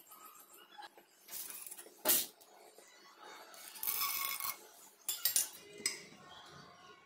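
Steel utensils clinking against a pot, with one sharp clink about two seconds in. Bengal gram (chana dal) is poured from a small steel bowl into ghee in the pot, followed by a few quick light clinks.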